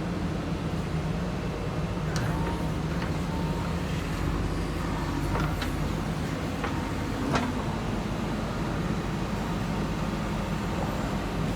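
JCB backhoe loader's diesel engine running steadily, with a handful of sharp clinks over the first seven or so seconds.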